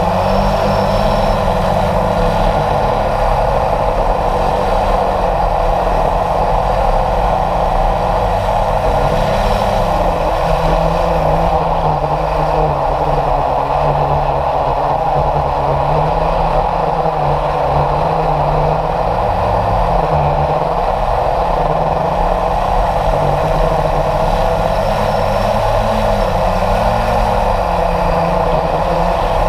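Onboard sound of a radio-controlled model jet in flight: its motor runs steadily under rushing air. The motor's pitch wavers a little up and down as it flies.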